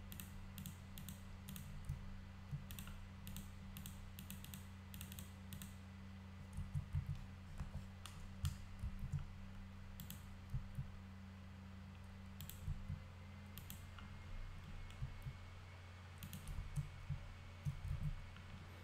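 Computer keyboard keys and mouse buttons clicking, a quick run of clicks in the first several seconds and then scattered ones, over a steady low hum.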